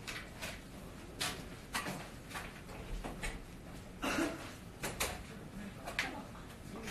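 Quiet room tone with about ten faint, scattered clicks and taps.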